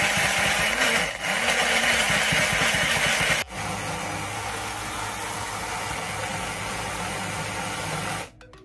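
Small electric blender motor grinding soaked rolled oats, flaxseed and prunes. It runs loud for about three and a half seconds, then drops abruptly to a quieter, steadier whir as the mixture turns smooth, and switches off near the end.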